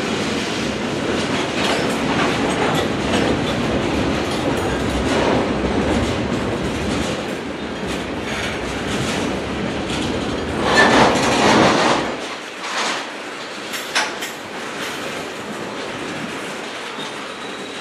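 Freight train cars rolling past, wheels clattering over the rails in a steady rumble. A louder swell comes about eleven seconds in; after it the deep rumble drops away and a sharp click is heard.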